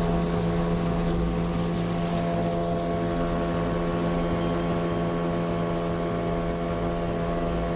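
Small 8 hp outboard motor pushing an inflatable boat, running at a steady speed with an even, unchanging pitch, over the rush of water from the wake.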